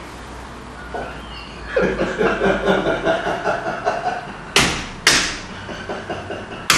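Three sharp hand slaps, two close together about four and a half seconds in and one near the end. Before them comes a couple of seconds of a wavering pitched sound.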